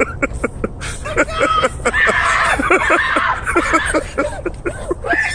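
People's voices yelling and laughing in short rapid bursts, going higher and louder for about a second and a half around two seconds in.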